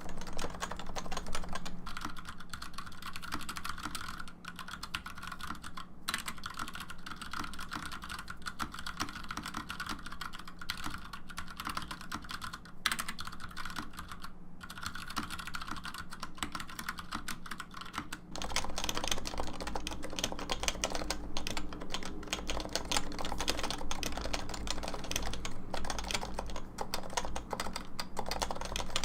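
Continuous fast typing on a computer keyboard, a dense run of keystrokes. About eighteen seconds in the sound of the strokes changes, with more low thud beneath the clicks, as when typing moves to a different keyboard.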